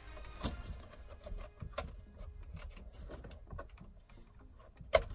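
Scattered light plastic clicks and knocks with rustling as gloved hands work the wiring connectors at the back of a BMW CCC navigation head unit. Two sharper clicks stand out, about half a second in and near the end.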